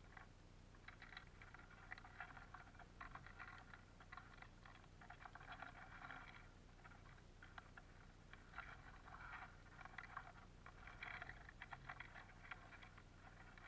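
Faint, irregular clicking and crackling of black sunflower seeds being husked and shuffled by Eurasian bullfinches and siskins feeding in a wooden feeder tray, in clusters throughout, over a low steady hum.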